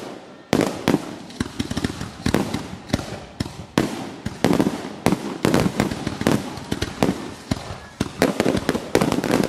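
Aerial firework shells bursting in a grand-finale barrage: rapid, overlapping bangs and crackling, several a second, after a brief lull near the start.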